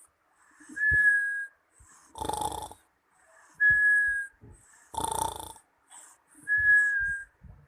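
A young girl snoring in her sleep. Each breath cycle is a short raspy snore, then a thin high whistle that dips slightly in pitch, repeating about every three seconds.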